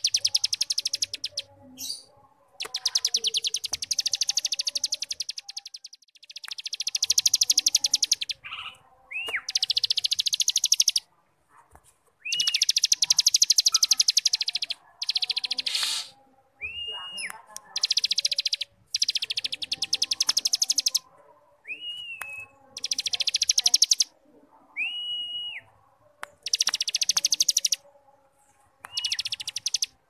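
A cigun, a prinia, singing its 'ngebrem' song: bursts of very fast buzzing trill, each lasting one to two and a half seconds, alternating with short clear whistled notes that rise and fall.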